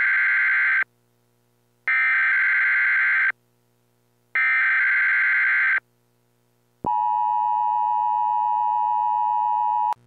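Emergency Alert System tones: three bursts of warbling SAME header data, each about a second and a half, then a long steady two-tone attention signal that cuts off abruptly near the end.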